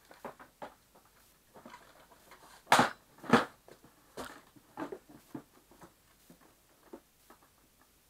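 Handling noise from a vacuum cleaner's housing being shifted and set down on its casters: scattered clicks and taps, with two loud knocks close together about three seconds in.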